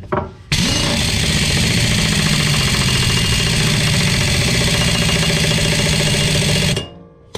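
Pneumatic impact wrench hammering as it drives a mower blade bolt tight. It starts suddenly about half a second in, runs steadily for about six seconds, and cuts off near the end.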